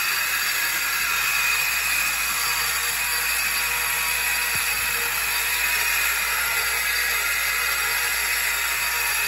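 White Mountain electric ice cream freezer motor running steadily, driving the can in the ice-packed wooden tub. The motor turns on a homemade bushing greased with Lubriplate.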